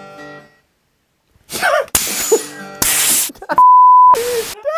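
A loud, steady, single-pitched censor bleep about half a second long, a little past the middle. Before it come a voice and harsh hissing bursts, and at the very start a guitar chord dies away.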